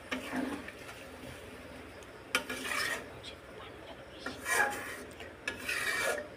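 Metal spatula stirring duck curry in a metal pot, scraping across the bottom of the pot in about four separate strokes.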